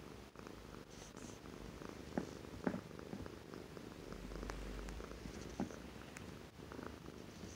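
Calico cat purring steadily, with a few short clicks.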